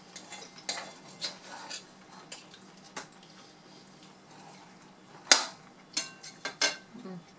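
Knives and forks clinking and scraping on dinner plates as food is cut, in scattered light clicks, with one sharp clink about five seconds in and a quick run of clinks soon after.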